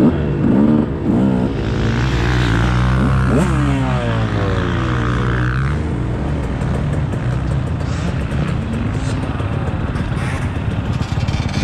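Dirt bike engine revving and dropping back again and again in the first few seconds as it accelerates and shifts, then running at a steadier pitch.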